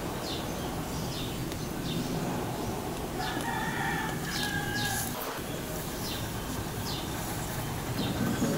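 A rooster crowing once, a long call starting about three seconds in and lasting about a second and a half, with short high bird chirps scattered around it.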